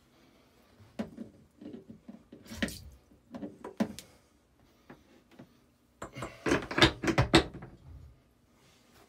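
Clicks and clatter of a boat head's sink faucet and pull-out sprayer hose being handled, with short spurts of water into the sink. The loudest run of knocks and clatter comes about six seconds in and lasts about two seconds.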